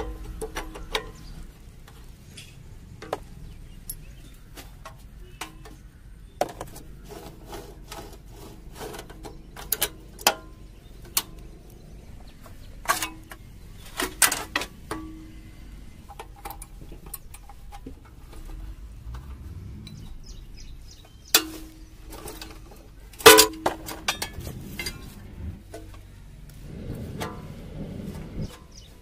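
Irregular sharp knocks and clicks, like tools and metal parts being handled, over a faint low hum; the loudest knocks come about halfway through and again near the end.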